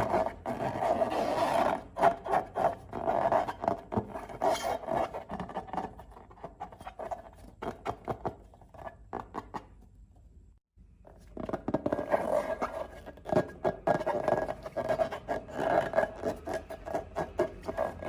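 Slime being squished and worked by hand: a dense stream of small wet clicks and crackles, which drops out briefly just after halfway and then resumes.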